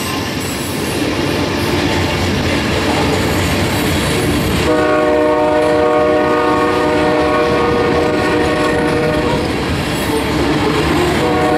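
Loaded grain train of covered hopper cars rolling past, its wheels and rails making a loud, continuous rumble. About five seconds in, a locomotive air horn chord sounds steadily for about five seconds, and a fainter horn tone comes back near the end.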